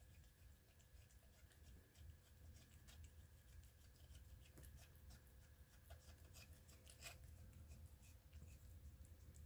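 Faint, irregular wet clicks of a cat licking yogurt, with one louder click about seven seconds in, over a low steady hum.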